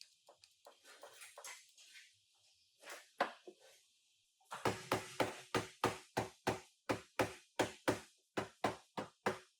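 Hammer striking car body sheet metal: scattered light knocks and clinks at first, then, about halfway through, a steady run of hard, ringing blows, about three or four a second.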